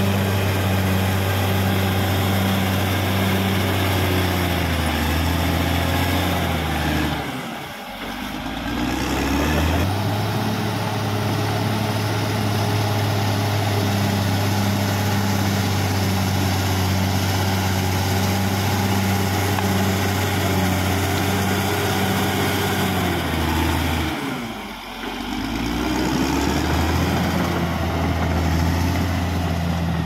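Caterpillar D6R XL bulldozer's diesel engine running steadily. Its pitch sags and drops off twice, about eight seconds in and again near twenty-five seconds, and each time it climbs back up.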